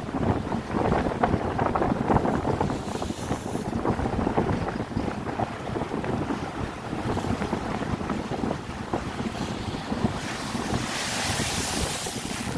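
Strong, gusty wind buffeting the microphone over the wash of wind-driven waves on a rocky shoreline. About ten seconds in, a harder gust brings a rising hiss.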